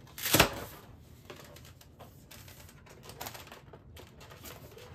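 Plastic packaging of a toilet-seal kit being opened and handled: one loud crackle about half a second in, then scattered light rustles and clicks.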